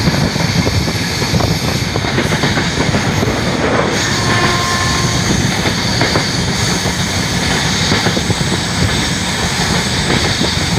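Train running on the rails, heard from on board: a steady, loud running noise with occasional clicks of the wheels over rail joints.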